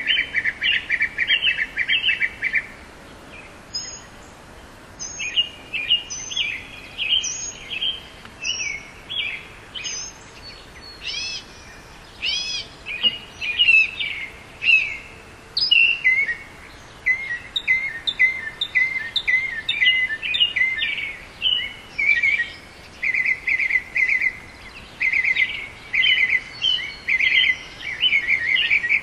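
Northern mockingbird singing: a long run of varied phrases, each made of the same note repeated several times in quick succession before switching to a new one, with a brief pause about three seconds in.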